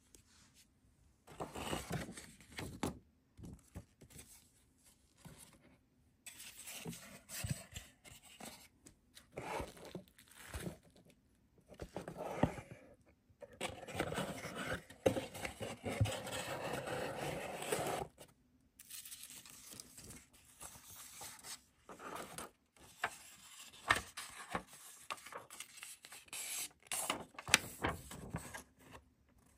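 An album's packaging and contents being handled: rustling, scraping and sliding of paper and card in irregular bursts, with a longer spell of steady rustling about halfway through and a few sharp taps.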